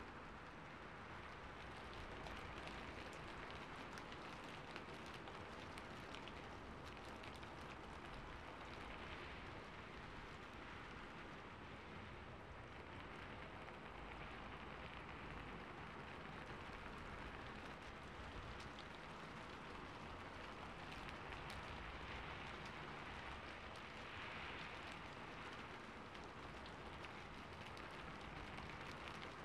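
Steady rain falling on a rooftop, an even patter of drops with fine ticks throughout, from a library ambience recording.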